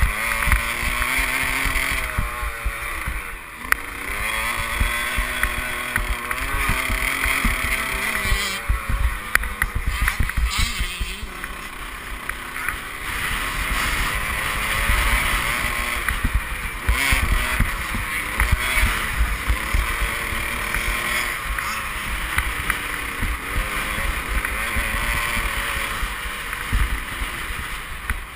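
Motocross bike engine revving hard and easing off again and again as the rider accelerates, shifts and brakes around the track, with wind and bump buffeting on the helmet microphone.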